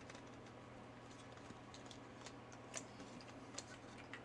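A few light, irregular clicks of the plastic gears of a 3D-printed silk PLA Gear Ball being turned by hand, the gears sprayed with silicone lubricant.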